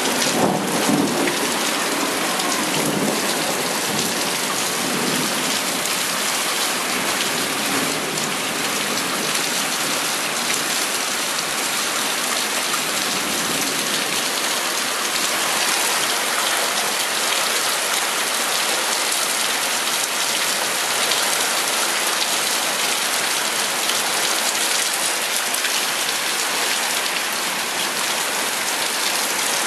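Heavy thunderstorm rain pouring steadily onto the ground and surfaces around a porch. A low thunder rumble dies away during the first few seconds.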